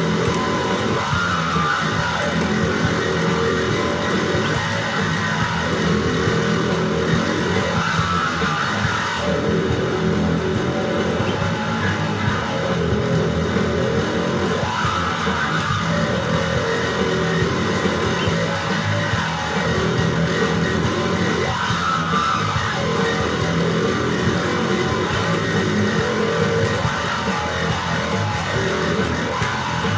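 Instrumental rock music with guitars and bass guitar playing a steady, repeating pattern.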